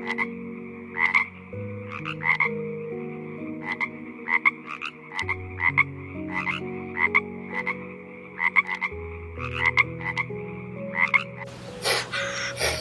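Frogs croaking in a chorus: short, sharp croaks repeat about once or twice a second over a steady trilling background. Near the end the croaking stops and a different, louder animal call takes over.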